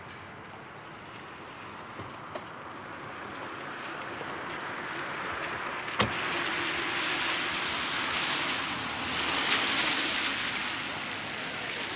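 A car passing, a hiss of tyres and engine that swells from about four seconds in and is loudest near ten seconds. A single sharp click comes about halfway through.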